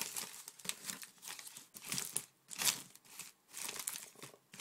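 Plastic chocolate-bar wrappers and bubble wrap crinkling in irregular bursts as a hand rummages through and shifts a box of wrapped sweets.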